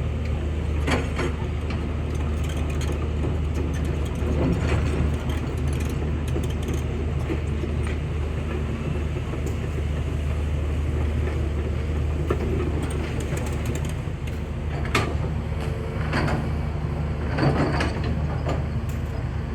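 Hydraulic excavator's diesel engine running steadily under load, with a few short metallic clanks near the start and several more near the end.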